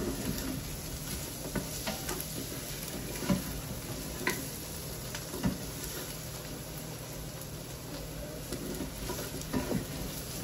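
Chorizo, onions and garlic sizzling in an Instant Pot on its sauté setting, with a spoon stirring and a few light knocks of the spoon against the pot.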